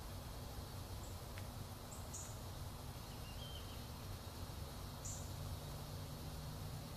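Faint outdoor ambience: a steady low rumble with a few short, high chirps spread through it and a single soft click.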